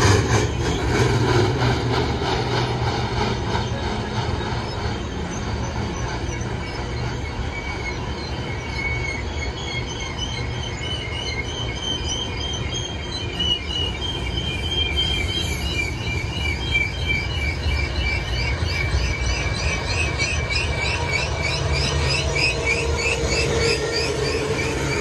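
Loaded freight cars, covered hoppers and tank cars, rolling past with a steady rumble of steel wheels on rail. High-pitched, wavering wheel squeal comes in about a third of the way through and keeps going.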